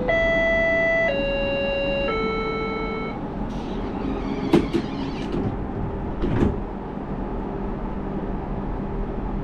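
A low-floor light-rail tram's three-note descending chime, each note about a second long, the signal that the doors are closing. Two knocks follow, a sharp one about four and a half seconds in and a duller one near six seconds, with the sliding doors shutting. A steady hum from the tram's equipment runs underneath.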